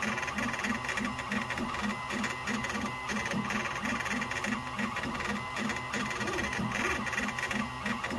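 Shapeoko XXL CNC stepper motors driving a JTECH 4.2 W laser head back and forth while raster-engraving at 60 inches per minute. A steady machine whine carries a low buzz that pulses about three times a second.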